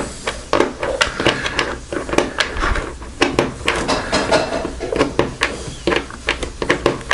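Light, irregular clicking and clinking of a Sig Sauer MPX .177 pellet belt (plastic links with metal link pieces) handled in the fingers as the pellets in it are pushed down into their seats.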